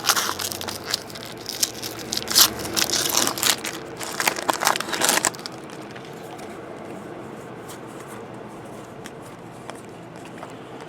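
Crinkling and tearing of a foil trading-card pack wrapper being handled and opened, in a run of sharp crackles that stops about five seconds in, leaving a faint steady room hum.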